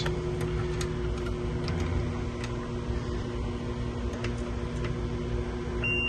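Steady low machinery hum with scattered light clicks as the meter's test leads are handled. Near the end a steady high beep starts: the Fluke 376 FC clamp meter's continuity beeper sounding across a fuse that is good.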